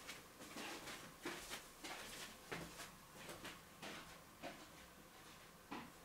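Domestic cat hiccuping: a quick, uneven series of small, sharp hics, about two or three a second.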